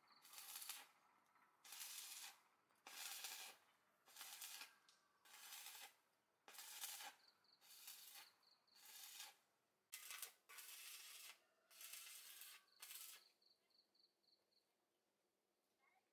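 Short hissing bursts of pressurised spray, each about half a second long and roughly one a second apart, about a dozen in all, stopping about 13 seconds in.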